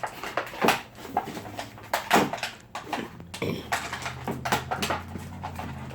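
Plastic packaging crinkling and rustling in short, irregular crackles as Nerf foam darts are pulled out of it. A steady low hum comes in about halfway through.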